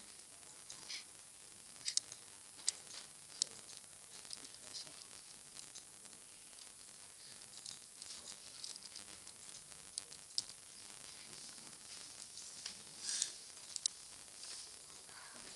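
Faint computer mouse and keyboard clicks, scattered irregularly, with a small run of key taps partway through, over a steady hiss.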